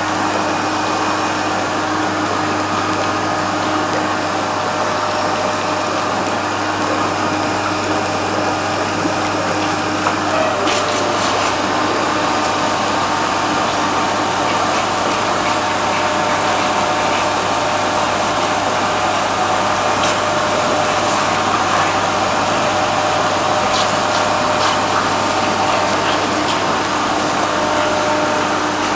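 Whirlpool bathtub's jets running: a steady motor hum with the water churning and bubbling.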